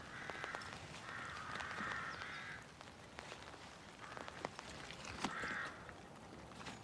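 Crows cawing, a few hoarse calls: one at the start, a longer run about a second in, and another about five seconds in, over steady outdoor background noise.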